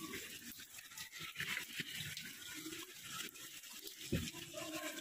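Hailstones crunching and clicking as they are scooped up by hand from a pile, with one dull thump about four seconds in.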